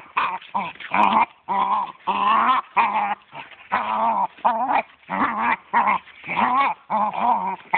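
A dachshund growling and whining at play, a string of short calls about two a second, each wavering up and down in pitch.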